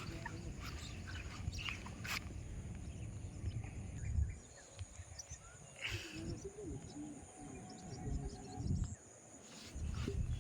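Outdoor ambience: birds chirping faintly over a low, steady rumble, with a few sharp clicks.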